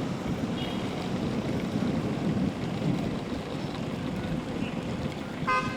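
Steady low outdoor rumble of traffic and wind. A brief horn-like pitched tone sounds near the end.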